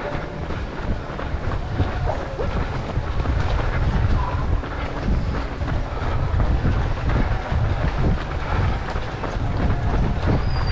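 Wind buffeting a GoPro microphone worn by a runner, with a steady run of knocks from running footsteps and the camera jostling.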